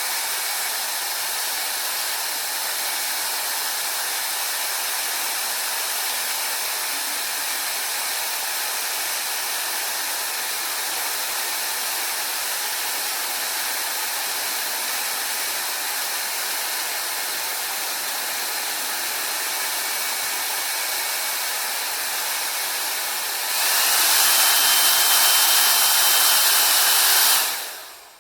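Llano 1400 W brushless-motor ionic hair dryer running with a steady rush of air. Near the end it steps up louder and brighter, with a faint high whine, for a few seconds, then stops.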